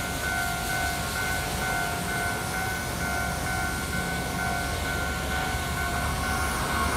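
Railway level-crossing warning bell ringing in an even repeating pattern, a little over two strokes a second, over a low rumble.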